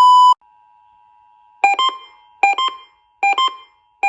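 Electronic alert tones from a radio receiver. A loud steady beep cuts off about a third of a second in and leaves a faint steady two-note tone. From about a second and a half in, groups of quick beeps at several pitches repeat about every 0.8 s, four times.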